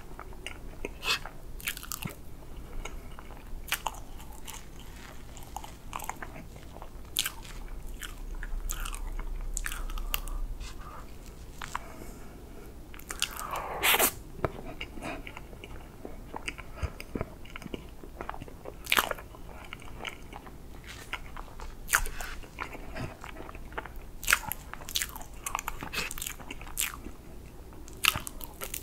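Close-miked eating of whipped-cream chocolate sponge cake: soft, wet chewing and mouth sounds broken by many sharp clicks, with a louder bite about halfway through.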